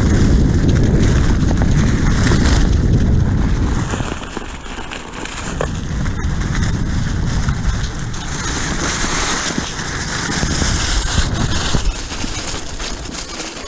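Wind buffeting the microphone of a hand-held action camera on a moving Onewheel electric board: a loud low rumble that eases about four seconds in and builds again, with a higher hiss in the second half.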